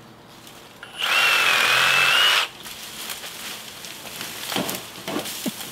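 Handheld cordless power tool running in one burst of about a second and a half, a steady high whine over a rush of noise, then stopping. Faint rustling of brush follows.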